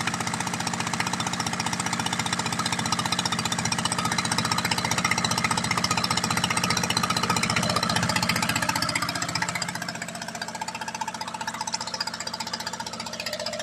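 Freshly rebuilt engine running with a rapid, even firing beat and no misfires, a sign that the rebuild came out well. It gets quieter about ten seconds in.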